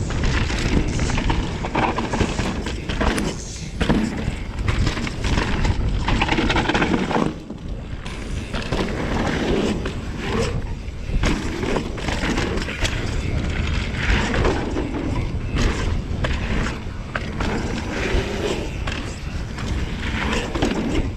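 2020 Pivot Switchblade mountain bike rolling fast over a rough dirt trail: steady tyre and rolling rumble with frequent knocks and rattles from the bike over roots and rocks.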